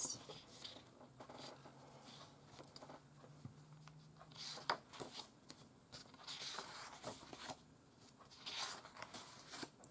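Faint rustling and sliding of printed paper sheets as they are lifted, turned over and laid down, a few brief rustles a second or two apart.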